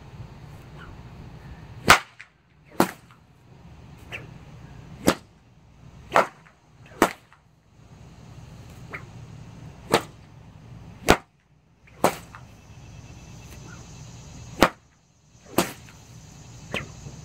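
Whip cracking over and over: about a dozen sharp cracks, many coming as doubled-up pairs about a second apart.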